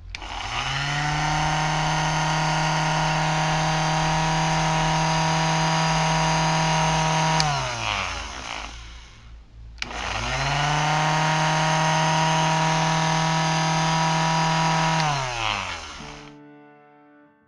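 Homemade drill powered by a blender motor with a drill chuck, switched on twice: each time the motor whines up to speed, runs steadily for several seconds, then winds down with a falling pitch once it is switched off.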